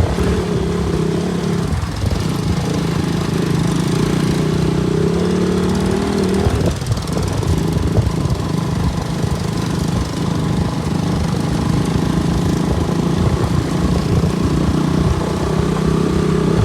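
KTM RC 200's single-cylinder engine running while the motorcycle is ridden. Its steady note breaks up and goes ragged from about seven seconds in, then settles back to a steady note near the end.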